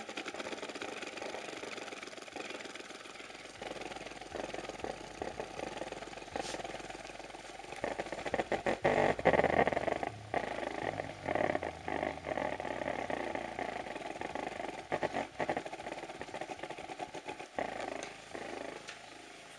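Rockford Fosgate Punch 10-inch subwoofer playing bass-heavy music loud, heard as a distorted, fluttering buzz, loudest about halfway through.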